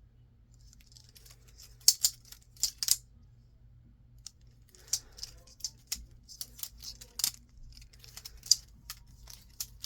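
3D-printed carbon fiber PLA balisong being flipped: the plastic handles and blade clicking and clacking against each other in quick irregular runs, with a few louder clacks.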